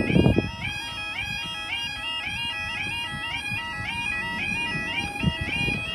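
Level crossing yodel alarm sounding, its tones stepping rapidly up and down between two pitches; the recorder hears it as skipping slightly and in need of fixing. A brief low thump near the start.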